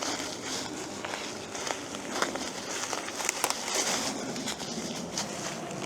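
Crackling and rustling of dry leaves and twigs underfoot as someone moves along a woodland trail, with scattered small snaps.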